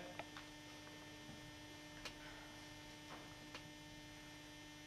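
Near silence with a steady electrical hum, broken by a few faint clicks.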